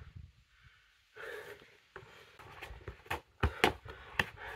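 Heavy breathing of a tired freestyle footballer, followed in the second half by a run of dull thumps and taps from the football and his feet on the paving, several about half a second apart.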